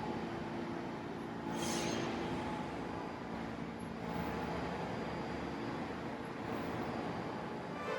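New York subway train (Q line) running on the rails, a steady low rumble and rattle, with a short hiss of air about a second and a half in.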